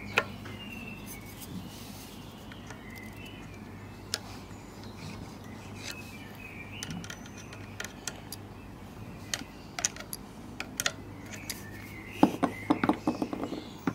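Scattered light metallic clicks and clinks as the small Meccano MEC1 steam engine is oiled and its crank moved by hand, with a quick run of clicks near the end, over a steady low hum and faint bird chirps.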